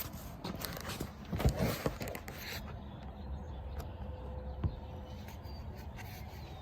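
Handling noise: scattered knocks, scrapes and rustles as something is picked up and set down, the loudest cluster about a second and a half in, over a steady low rumble.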